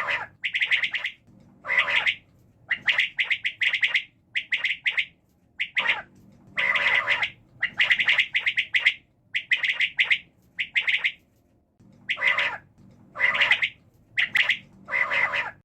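Quail calling: a string of short, harsh, rasping calls repeated in irregular groups, one after another.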